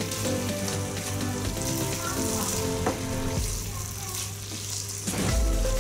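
Camel meat and onions sizzling in oil in a pot, stirred with a wooden spoon at first.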